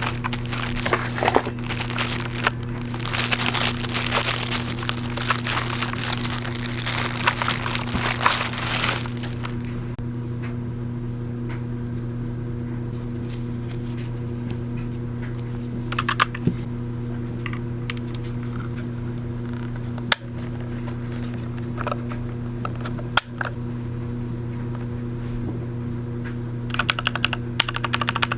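Plastic and cardboard packaging crinkling and tearing for the first nine seconds or so as a new computer keyboard is unpacked. After that there are a few single clicks over a steady low hum, then rapid keyboard key clicks of typing near the end.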